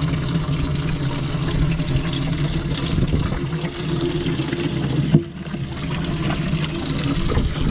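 Water pouring steadily into a boat's live well from its pump, with a low steady hum under the running water. A single sharp knock about five seconds in.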